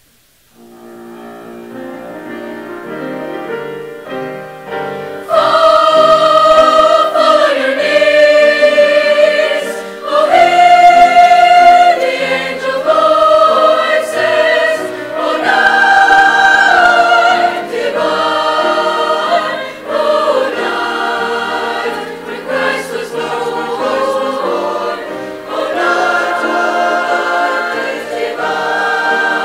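Mixed choir of men's and women's voices singing with grand piano accompaniment, starting softly and swelling to full voice about five seconds in, then singing in long held phrases.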